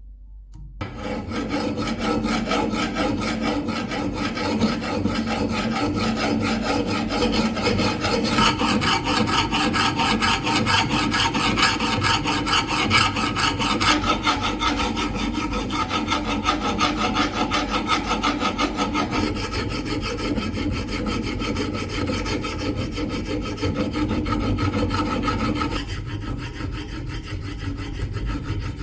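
Continuous abrasive rasping on the rusted steel blade of an antique shashka sword, as rust is ground, sanded or filed off. It starts about a second in and changes character a few times.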